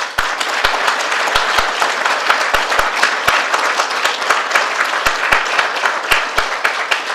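Audience applauding, with a few single claps close by standing out sharp and loud.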